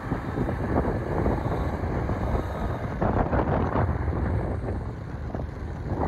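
Wind buffeting the microphone of a moving motorcycle, a dense gusty noise with the engine running underneath.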